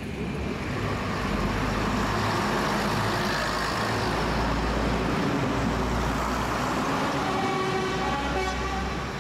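British Rail Class 117 first-generation diesel multiple unit running close past the platform, a steady rumble of its underfloor diesel engines and wheels on the rails that builds about half a second in. A humming tone joins in near the end.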